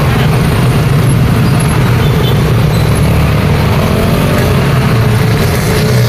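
Loud, busy street traffic: motor scooters and motorcycles passing close by over a steady heavy engine rumble, with a truck's engine coming through in the second half.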